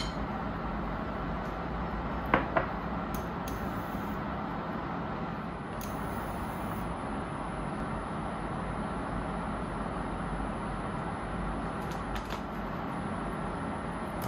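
Steady background hum and hiss, with two sharp clicks a fraction of a second apart about two and a half seconds in.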